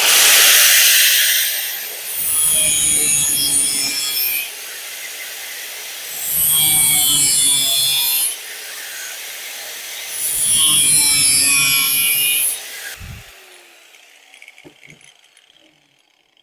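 Electric angle grinder with a cut-off disc cutting notches into the end of a rusty steel exhaust pipe: three cuts of two to three seconds each, the grinder running freely between them. About 13 seconds in it is switched off and winds down.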